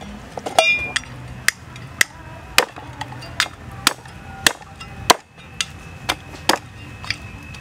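Large kitchen knife chopping a whole duck carcass on a wooden chopping block: sharp knocks at about two a second.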